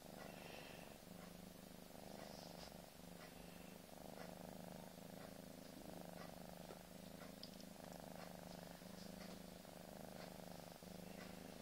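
Domestic cat purring softly and steadily close to the microphone, the purr changing with each in- and out-breath about once a second.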